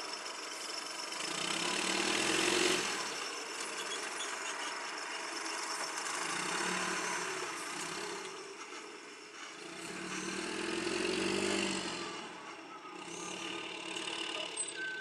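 Roadrunner hay squeeze's engine running and revving up three times as the machine pulls back and turns away from a loaded hay trailer.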